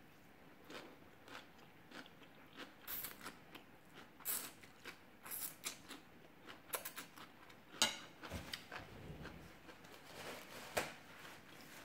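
A person eating khanom jeen rice noodles close to the microphone: slurping strands in and chewing, heard as an irregular run of short wet smacks and clicks, with a sharper one about eight seconds in.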